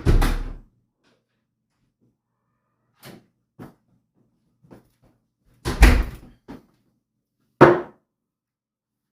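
A door thuds shut with a heavy, deep bang, followed by a few faint soft steps and then two more loud thuds, one about six seconds in and a shorter one shortly after.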